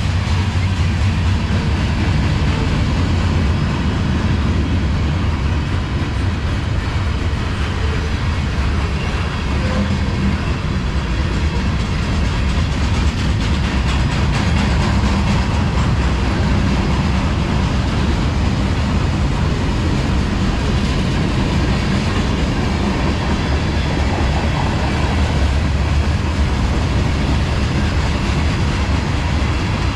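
A long CSX manifest freight train rolling past at steady speed: the continuous rumble of the cars' wheels on the rails, with some clickety-clack.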